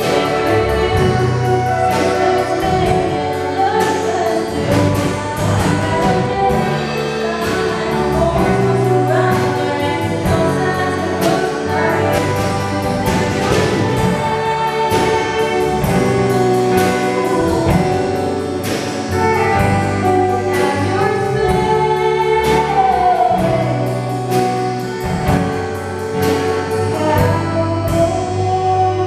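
Live country band: a woman singing lead into a microphone over acoustic guitar and electric bass, with a steady beat.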